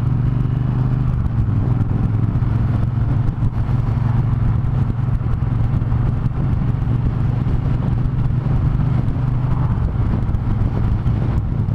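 Triumph Thunderbird Storm's 1700 cc parallel-twin engine running steadily while riding, a loud even low drone, with road and wind noise over it.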